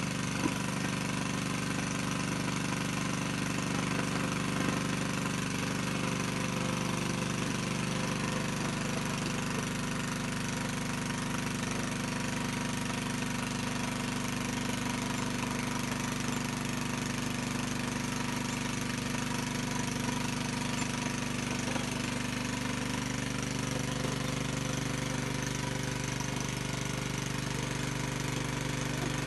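A small engine runs steadily at constant speed, most likely the motor pump forcing drilling water through the hose into the hand-turned borehole drill pipe. A few faint clinks sound over the hum.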